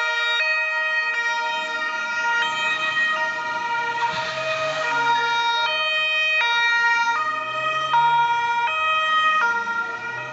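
Two-tone emergency-vehicle siren of a Carabinieri patrol car, stepping between a high and a low pitch about every three-quarters of a second. The car passes by about four to five seconds in.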